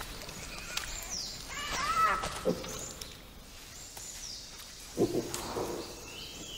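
Wild forest ambience with bird calls: several high whistles sliding downward, and arching calls around two seconds in. A short, loud, low animal call comes about five seconds in.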